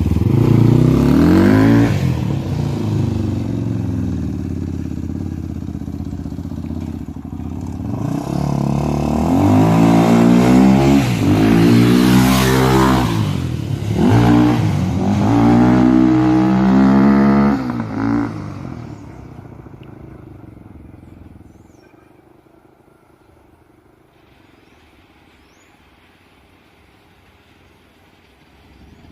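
Dirt bike's single-cylinder four-stroke Honda Tornado engine, bored to 293 cc with an Athena kit and fitted with a 296 camshaft, revving hard with its pitch climbing and dropping several times. The engine sound dies away after about 18 seconds.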